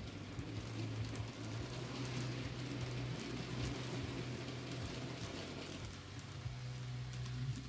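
N-scale model train, a diesel locomotive with passenger coaches, rolling along the track: an even rolling hiss with fine clicking from the small wheels on the rails over a steady low hum, easing off near the end.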